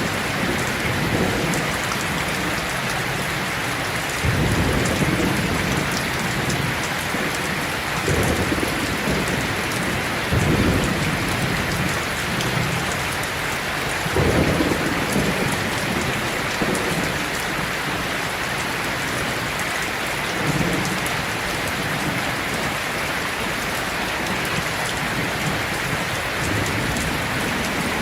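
Heavy rain falling steadily, with low rumbles of thunder rolling in several times, the strongest about four, eight, ten and fourteen seconds in.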